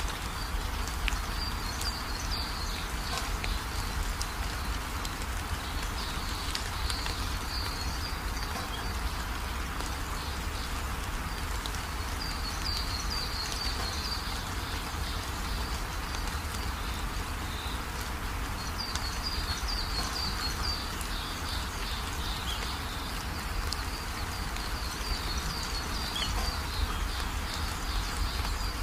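Steady rain falling on a corrugated roof, with runoff pouring off the roof edge and splashing down. Short runs of high chirping, from a bird or insect, come back every few seconds.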